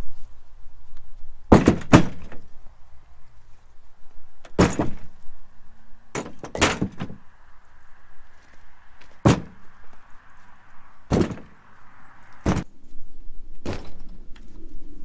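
Firewood logs thrown down one after another, each landing with a heavy wooden thunk. There are about nine, at irregular gaps of one to three seconds, some in quick pairs.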